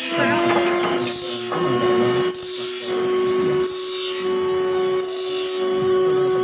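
Electric bench grinder motor running with a steady hum while its grinding wheel bites into the teeth of a band-saw blade, a harsh rasping grind that comes about once a second as each tooth is fed in. The blade is being resharpened after its teeth were dulled by nails in the old timber it was cutting.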